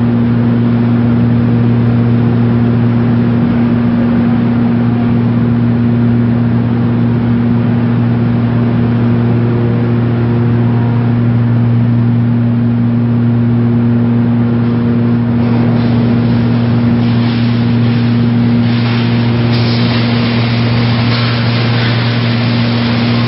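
Large green-waste shredder running steadily with a strong, constant low hum. From about fifteen seconds in, a rougher crackling and rattling joins as green waste goes through and is torn apart.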